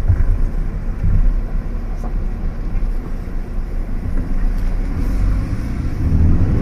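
Fiat Egea driving, heard from inside the cabin: a steady low engine and road rumble, with the engine note starting to rise near the end as it accelerates.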